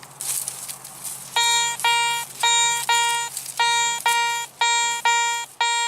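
Metal detector beeping over a buried target: one steady electronic tone sounding in short beeps about twice a second, starting about a second and a half in, as the target is pinpointed.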